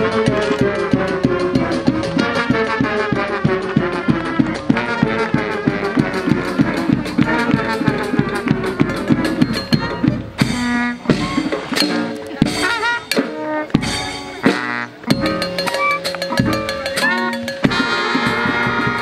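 Brass band with drums playing, with a fast steady drumbeat under the horns, whose notes slowly slide downward over the first half before breaking into busier, choppier phrases.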